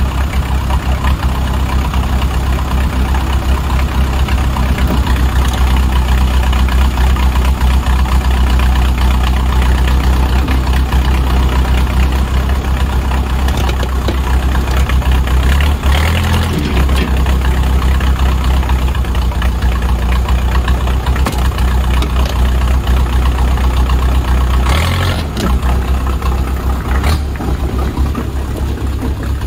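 Diesel engine of heavy equipment running steadily, with brief changes in its note about 16 and 25 seconds in, while the machinery works to walk a dozer's thrown track back onto its drive sprocket.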